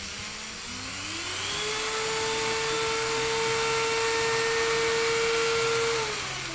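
Black & Decker RT18 rotary tool running free with no load, driving a flexible-shaft handpiece: its motor whine climbs steeply as the speed is turned up from low to high, holds a steady high whine, then winds down near the end.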